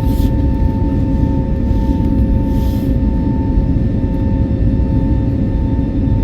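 Cabin noise of an Airbus A320neo in flight after takeoff: a steady low rumble of engines and airflow, with a few steady whining tones running through it. Two short hisses come in, right at the start and again about two and a half seconds in.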